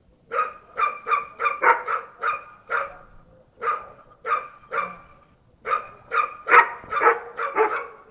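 Bull terrier barking over and over in three quick runs of barks, about three barks a second, with short pauses between the runs.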